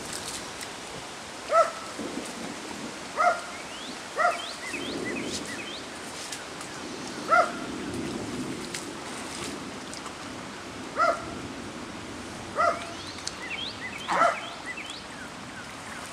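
A dog barking, about seven short single barks at uneven gaps of one to four seconds, over the steady rush of floodwater in a creek.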